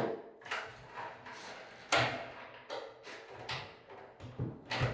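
Mirror cabinet door being handled and fitted at its hinges: a string of irregular knocks, clicks and rattles, loudest about two seconds in and again near the end.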